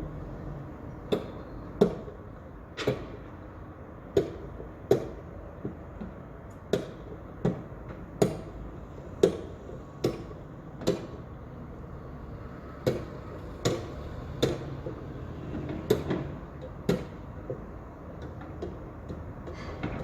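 Construction site hammering: sharp, irregular blows about one a second, each with a short ring, over a steady low rumble of site noise.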